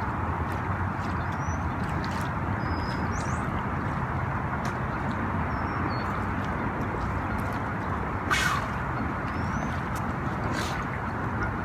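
Steady rushing outdoor background noise with faint, short, high bird chirps now and then, and one brief sharp rattling sound a little over eight seconds in.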